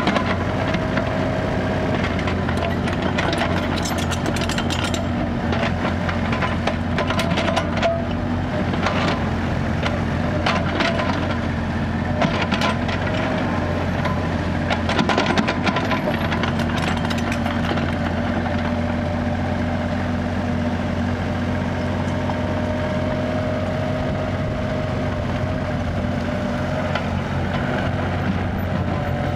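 Kubota mini excavator's diesel engine running steadily under load while the bucket digs into dirt, with scraping and repeated knocks and clatter through about the first half.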